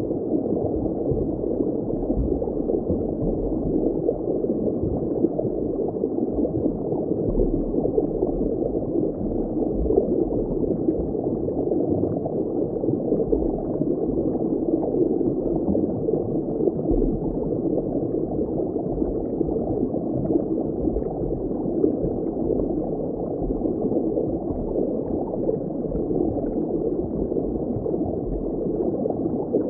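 Steady, muffled underwater water ambience: a dense, even bubbling and gurgling wash with no highs, unchanging throughout.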